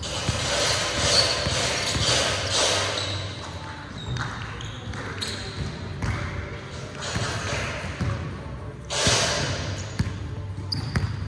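A basketball being dribbled on a hardwood gym floor, in irregular bounces, with sneakers squeaking and scuffing on the court.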